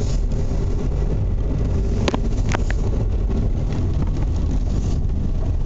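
Car driving, heard inside the cabin as a steady low road rumble, with two short sharp knocks about two seconds in, half a second apart. These are the intermittent knock from under the car, which the driver places in the middle at the bottom.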